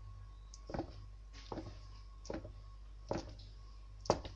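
Kitchen knife slicing a hard-boiled egg, its blade knocking on a cutting board five times at an even pace, the last stroke the loudest.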